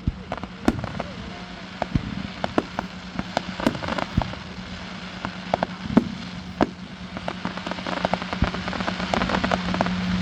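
Display fireworks going off: an irregular run of sharp bangs and crackles that thickens and grows louder towards the end, over a steady low hum.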